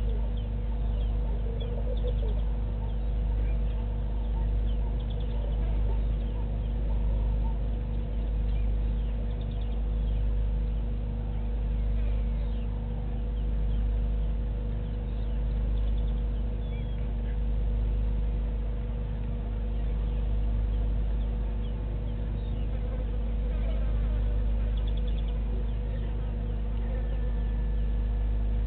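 Steady outdoor ambience dominated by a deep rumble that swells and fades every couple of seconds, with a constant hum under it. Faint scattered chirps of insects and birds sit on top.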